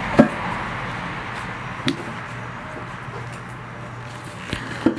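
Steady background noise with a few sharp, short clicks or knocks: the loudest just after the start, another about two seconds in, and one near the end.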